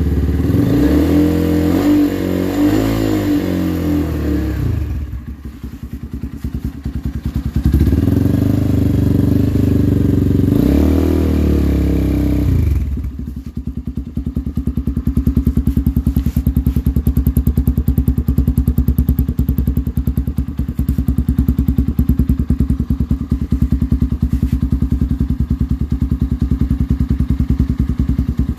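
Motorcycle engine through an Akrapovič aftermarket exhaust, revved twice for a few seconds each. About halfway through it settles to a steady idle with an even, pulsing beat.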